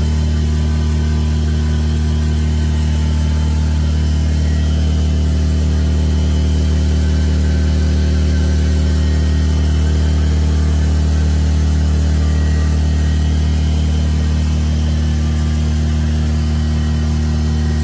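An engine or motor running steadily at one speed: a loud low hum that holds its pitch and level without change.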